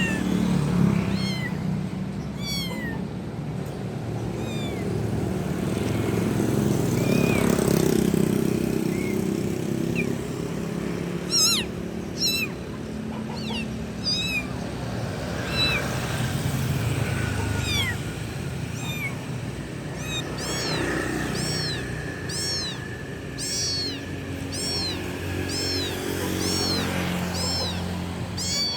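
Kittens mewing again and again in short, high, arching calls, calling for their mother; the calls come faster, about two a second, in the last few seconds. A steady low rumble runs underneath.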